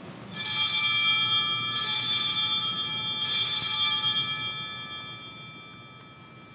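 Altar bells rung three times at the elevation of the host, right after the words of consecration. Each ring is a cluster of bright high tones that dies away over a few seconds.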